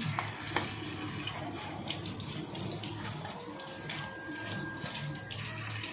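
Kitchen tap running while plastic curd cups and a milk packet are rinsed under it, with a couple of light knocks near the start.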